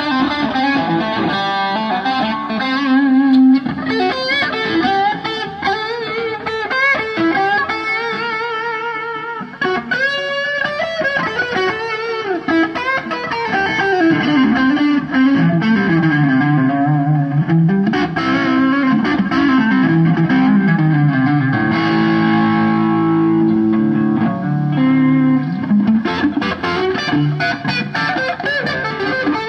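Electric guitar played through an effects unit with distortion: a sustained lead melody with vibrato and bends over a moving lower line.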